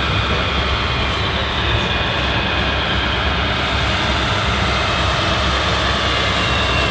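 RC model trucks and construction machines running: a steady mechanical din with faint high whines that drift slowly in pitch.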